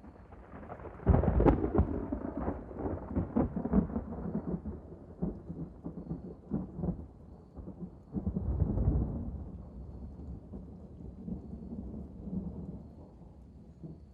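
Thunder: a sudden sharp crack about a second in, then a long crackling rumble that swells again around eight seconds in and dies away near the end.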